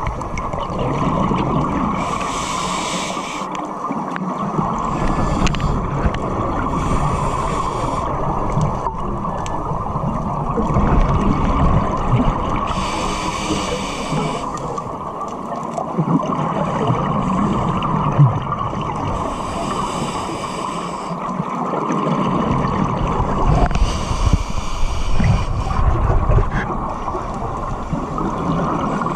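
A scuba diver's regulator breathing, heard underwater: about five breaths, each a hiss of the inhale followed by rumbling, gurgling bubbles of the exhale.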